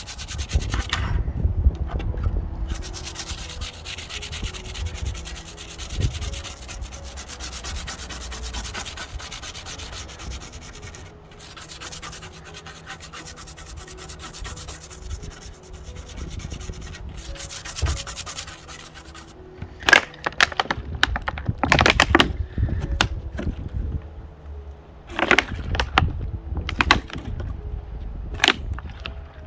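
Toothbrush bristles scrubbing the petrol-wet circuit board of a Gigabyte GTX 780 Ti graphics card, a rapid scratchy rubbing that runs for most of the time. In the last third it gives way to louder, irregular crackles and knocks as the soft plastic petrol container is handled and squeezed.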